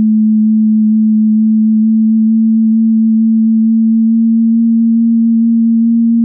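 A steady electronic hum, a near-pure low tone that creeps slightly upward in pitch, standing for the 'hmmm' of the universe's gravitational-wave background.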